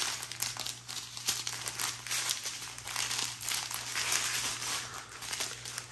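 Strip of small plastic zip bags of diamond-painting drills crinkling as it is handled and unfolded, a continuous run of rustles.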